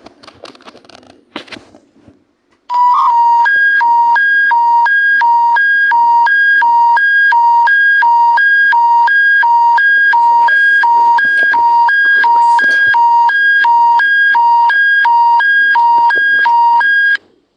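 Alberta Emergency Public Warning System alert tone: a loud electronic two-tone warble, alternating between a lower and a higher pitch about twice a second. It starts a couple of seconds in, runs about fourteen seconds and cuts off abruptly. It is the attention signal that comes before a broadcast emergency bulletin.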